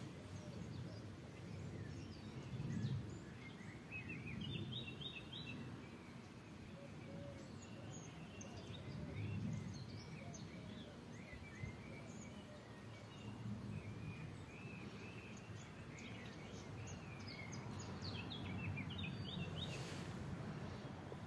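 Small birds chirping and twittering in short repeated phrases, busiest about four seconds in and again near the end, over a steady low rumble.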